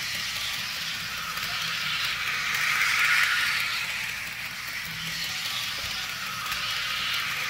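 Model train running around a loop of track, its running noise swelling and fading about every five seconds as it comes near and goes away.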